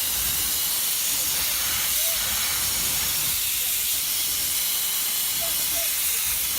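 Jet from a 350-bar industrial pressure washer with a sandblasting nozzle spraying continuously: a steady, unbroken hiss.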